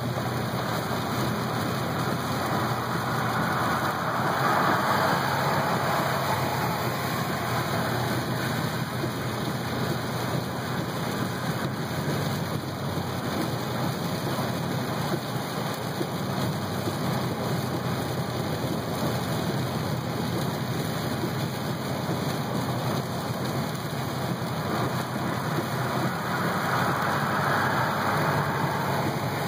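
Heavy rain falling on a moving car, heard from inside the cabin as a steady hiss mixed with road noise. It swells louder twice, a few seconds in and again near the end.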